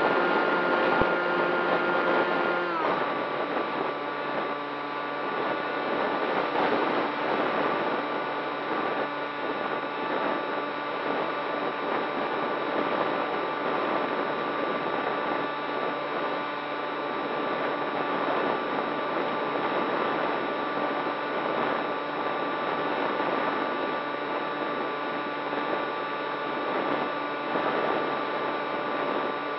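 RC model plane's motor and propeller whining steadily in flight, recorded by a camera on board, with wind noise rushing past. The pitch drops about three seconds in as the throttle comes back, then holds steady.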